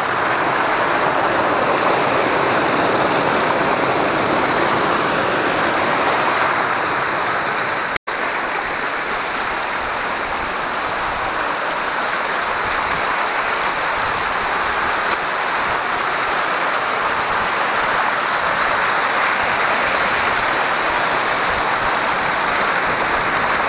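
Fast stream water rushing and splashing over rocks and small cascades in a steady, loud rush. It cuts out for an instant about eight seconds in and goes on a little quieter.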